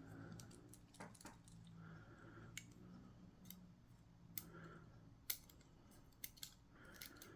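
Faint, irregular small metallic clicks and ticks of Ultion lock cylinder parts being handled and nudged while a sticking part is worked to drop into place.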